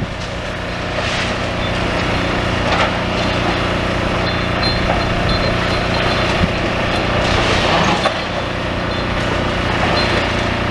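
Demolition excavators' diesel engines running steadily, with a few crunches and knocks of rubble being broken and moved.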